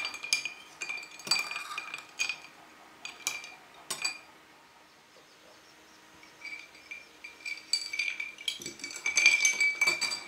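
Metal spoon stirring a drink in a glass, clinking against the sides, with the glass ringing after the strikes. The clinks stop for a couple of seconds midway, then come back quicker with the ringing held longer.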